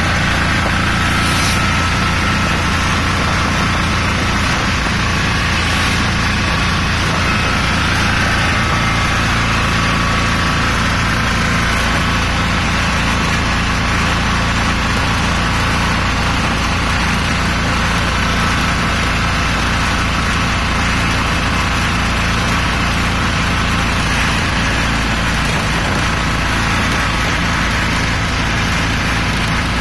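Auto-rickshaw engine running steadily as the three-wheeler drives along, heard from inside its open cabin with a steady rushing noise of road and passing air.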